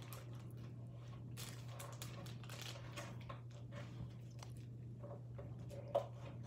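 A person chewing food with soft mouth noises and small clicks over a steady low hum, with one sharper click about six seconds in.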